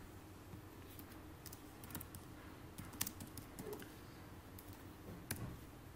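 Faint typing on a computer keyboard: an uneven run of separate keystroke clicks.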